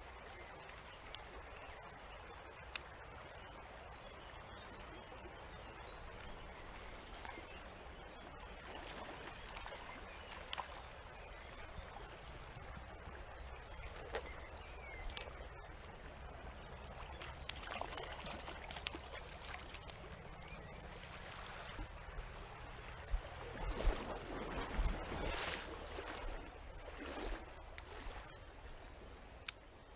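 Shallow stream running steadily, with splashes that become more frequent and louder in the second half as a hooked trout thrashes at the surface and is brought into the net.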